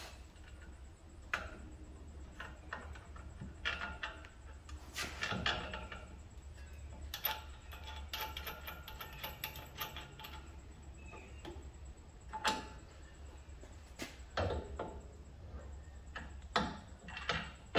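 Scattered, irregular metallic clicks and knocks of suspension parts and tools being handled as the steering knuckle is reconnected to the upper ball joint, over a steady low hum.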